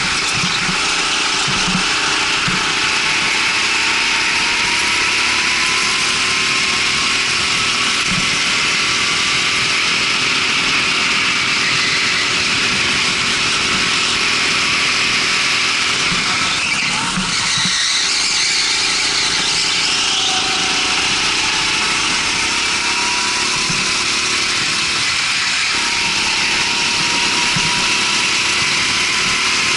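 Rental go-kart engine running hard, its pitch rising and falling as the kart speeds up and slows through corners, over steady rushing noise. A short tyre squeal comes about halfway through.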